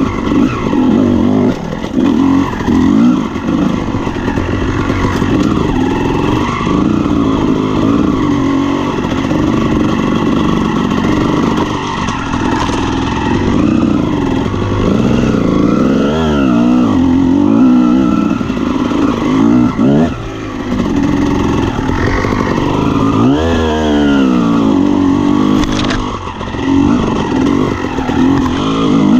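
Honda CR250R's two-stroke single-cylinder engine being ridden hard off-road, its pitch rising and falling again and again as the throttle is opened and shut, with several quick sharp revs in the second half.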